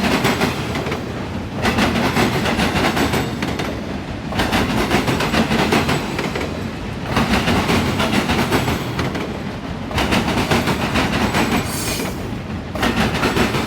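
Auto rack freight cars rolling past at speed: a steady rush of wheels on rail with clickety-clack, swelling and easing every two to three seconds as the cars go by.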